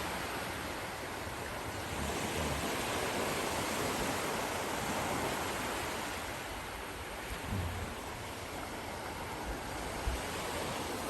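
Sea waves washing onto a sandy beach with the wind blowing, a steady rush of surf that swells and eases.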